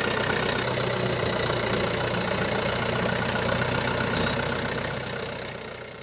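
Tractor engine idling steadily, fading out over the last second or so.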